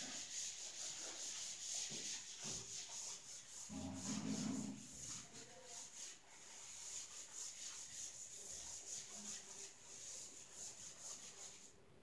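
Chalkboard being wiped with a handheld eraser: a long run of quick brushing strokes across the chalk, stopping just before the end. A brief low sound comes about four seconds in.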